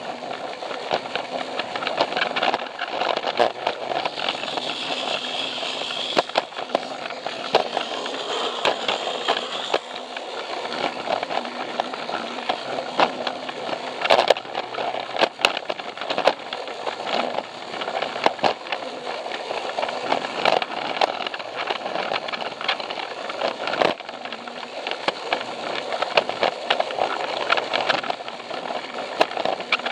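Plarail toy train running along plastic track: a steady rattling run from the small battery motor and gears, with frequent sharp clicks and knocks as the wheels cross the track joints.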